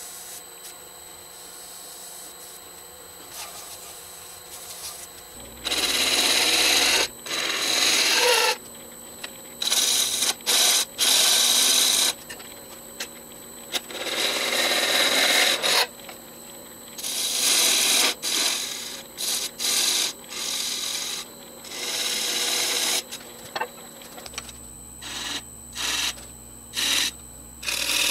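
Wood lathe spinning an Afghan pine blank while a turning tool cuts into its face. After about five quieter seconds of the lathe running, the tool makes repeated scraping cutting passes, each from a fraction of a second to about two seconds long, with short pauses between.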